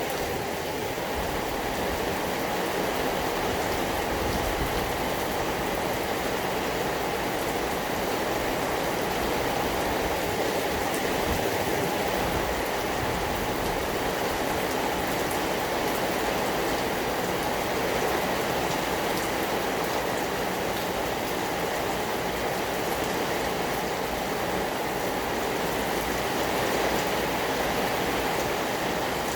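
Steady rain falling: an even hiss with scattered small drop ticks, unchanging throughout.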